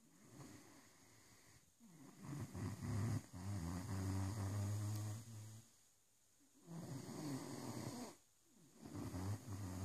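Great Dane snoring: three long, low-pitched snores with short pauses between them, the loudest in the middle.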